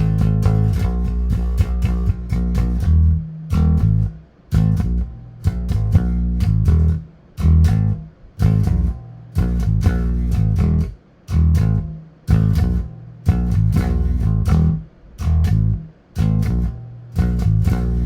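Warwick Vampyre SN-5 five-string electric bass played through a Neural DSP Quad Cortex amp modeller, with the bass's two tone knobs turned fully down. It plays a riff in short, repeated phrases with brief gaps between them, each note with a heavy low end and a bright, clanky attack.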